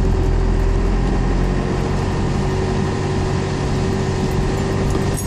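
4BT Cummins four-cylinder turbo diesel in a Ford F-150 running steadily as the truck drives slowly on a dirt road, heard from inside the cab. The deepest rumble eases a little about two seconds in.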